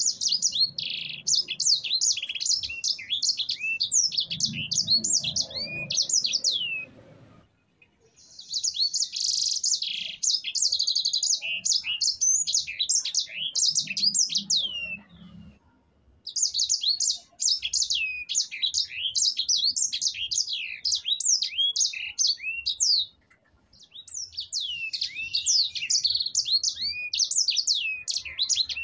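Sanger finch singing its rapid, rolling song of high chirps and trills in four long bouts with short pauses between them.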